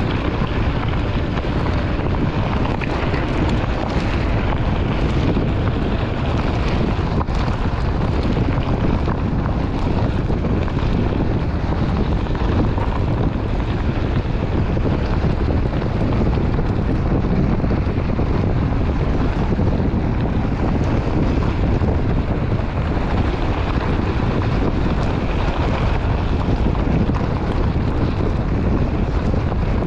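Steady wind buffeting an action camera's microphone as a Onewheel rolls along a desert gravel trail, with the board's tyre rolling over gravel underneath.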